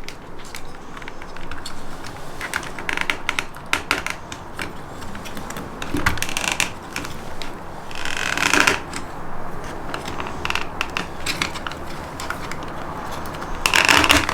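Plastic clicks, rattles and scrapes of a cruise control switch panel being pushed and worked into its cut-out in a steering wheel, with a few louder scrapes about six, eight and fourteen seconds in.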